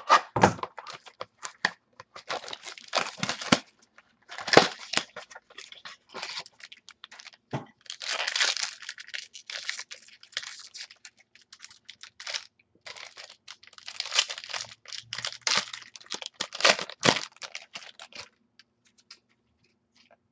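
A cardboard trading-card box cut open with scissors and its wrapping torn and crinkled, with clicks and scrapes as the cards are handled. The noise comes in irregular crackly bursts; the longest tearing stretch is about eight seconds in.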